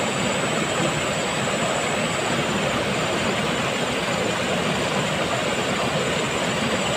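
Steady rushing of a shallow rocky river flowing over small rapids.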